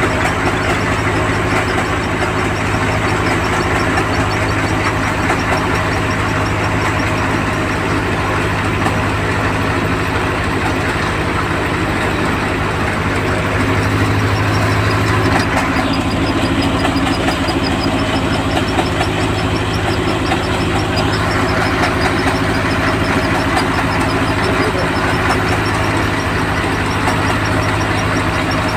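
Engine-driven soybean harvesting machinery running steadily at a constant speed, with a faint fast ticking from its moving parts.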